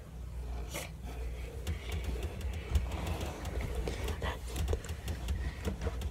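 Handling noise from a phone held close against a hoodie: scattered rustles, scrapes and small clicks over a low steady rumble.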